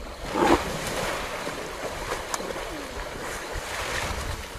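Water splashing and churning as a waterbuck thrashes in a river under attack from crocodiles, with wind buffeting the microphone. A short loud burst comes about half a second in.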